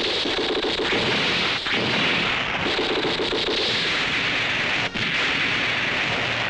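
A dense, continuous barrage of rapid-fire blasts and explosions, the battle sound effects of a monster's attack setting off a chain of pyrotechnic explosions around a giant robot. The barrage breaks off briefly about five seconds in.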